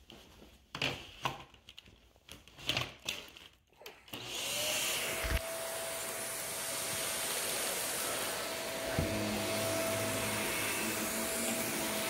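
A few scattered knocks and handling sounds, then an upright vacuum cleaner switches on about four seconds in and runs steadily with a high, even whine. About nine seconds in there is a knock, and a lower hum joins the motor sound.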